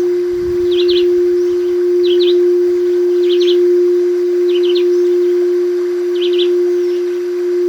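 Crystal singing bowl ringing one steady low tone that slowly swells and fades. Over it a small bird repeats a short, quick chirping phrase every second or so.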